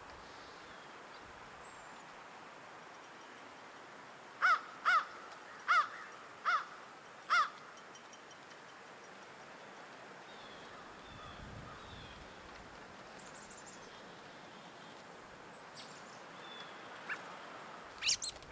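A crow cawing five times in quick succession, a harsh call repeated less than a second apart. Faint high chirps of small birds come and go.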